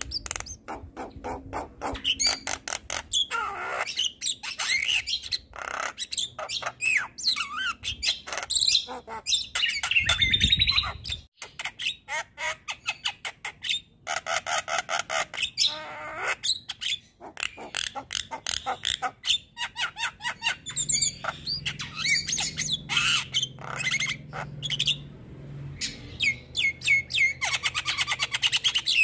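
Javan myna (jalak kebo) singing a long, varied song of rapid clicks, harsh squawks and whistled notes. A brief low rumble comes about ten seconds in.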